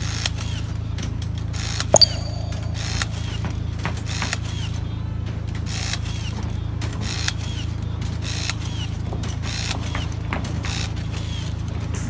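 Handheld battery-powered rebar tying tool (MAX TwinTier) tying bar crossings one after another, each tie a short mechanical burst, roughly one a second. A sharp metallic clang sounds about two seconds in. A steady low hum runs underneath.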